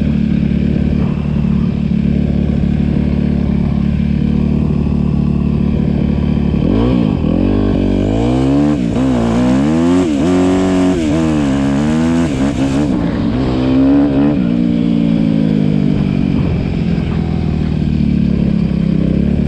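Yamaha WR250R's 250 cc single-cylinder four-stroke engine through an Akrapovič exhaust, idling steadily, then revved in a series of quick throttle blips, rising and falling about a second apart, before settling back to idle.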